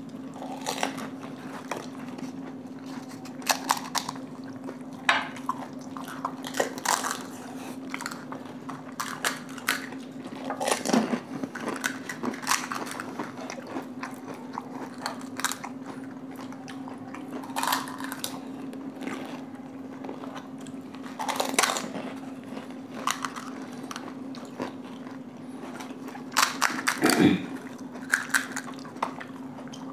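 Crisp panipuri (golgappa) shells being cracked open, bitten and chewed by two people: irregular sharp crunches scattered throughout, over a steady low hum.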